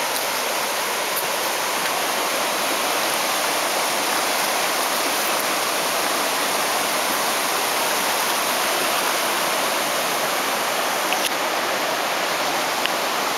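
River rapids rushing over marble boulders: a steady, unbroken rush of whitewater.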